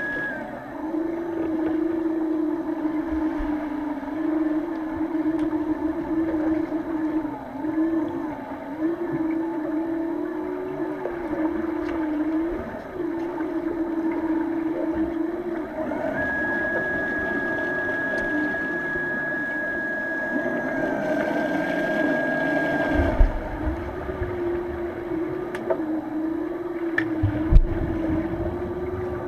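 Underwater sound in a swimming pool, picked up by a submerged camera: a steady low drone that wavers slightly in pitch, joined by a higher steady tone for several seconds just past the middle. Two low thumps come later on.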